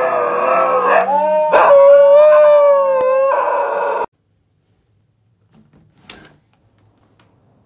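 Husky howling, one long drawn-out howl that wavers gently in pitch and cuts off suddenly about four seconds in.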